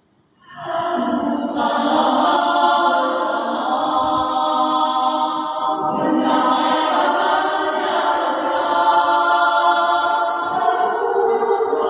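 A choir starts singing about half a second in and sings on steadily, with a short break between phrases near the middle.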